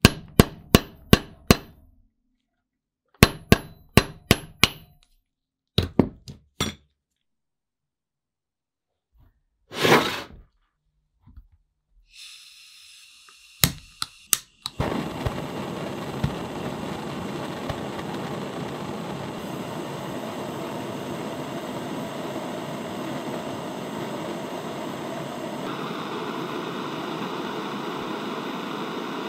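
Hammer blows ringing on a steel rod laid on a bench vise's anvil: three quick runs of strikes, five, five and three. Later a couple of clicks, then a steady blowing noise from a power tool, starting about halfway through and running on.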